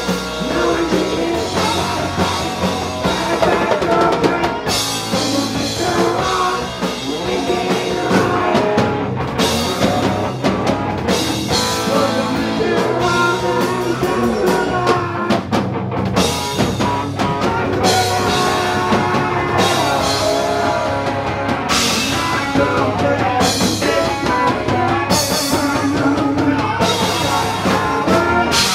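Live rock band playing loud: drum kit, electric guitar and bass guitar.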